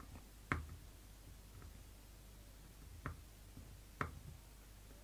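A few sharp clicks of a screwdriver working a terminal screw on a plastic thermal overload relay as a wire is fastened into the terminal: one about half a second in, two near the end, with fainter ticks between.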